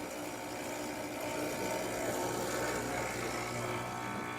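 Olympia Maximatic espresso machine's pump running steadily while pulling a test shot: a constant electric hum with a hiss over it.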